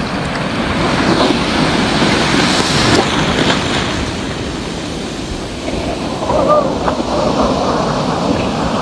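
Surf churning and breaking close around the microphone: a steady, loud rush of foaming seawater.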